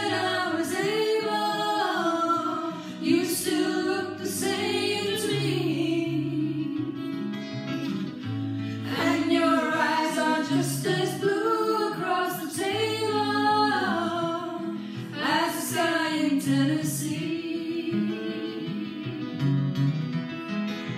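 A woman singing a folk ballad over a backing track of held low notes. The voice falls away about three-quarters of the way through, leaving the accompaniment.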